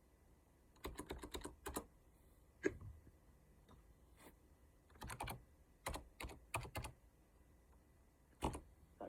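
Computer keyboard typing in several short bursts of key clicks, with one louder single thump about two and a half seconds in.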